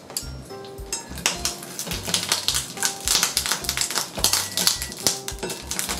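Light background music with a steady beat and short plucked-sounding notes, over rapid clicking and crackling from shishito peppers being turned with chopsticks in a hot frying pan.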